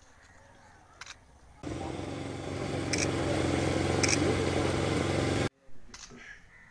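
A motorcycle engine running close by. It comes in abruptly about a second and a half in, runs steadily for about four seconds, and cuts off suddenly.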